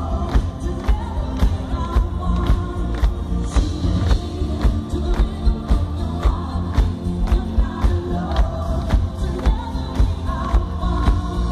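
A live band playing loud through a concert PA, with a steady drum beat and a lead voice singing over it, heard from within the crowd.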